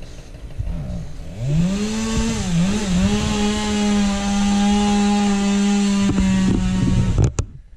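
A motor revving up, its pitch rising and dipping a couple of times, then held steady at high revs for about four seconds before stopping abruptly near the end.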